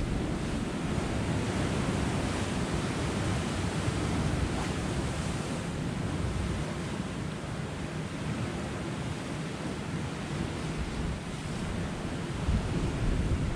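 Sea surf washing against a rocky shoreline, a steady wash of water with wind buffeting the microphone in low gusts, a little stronger near the end.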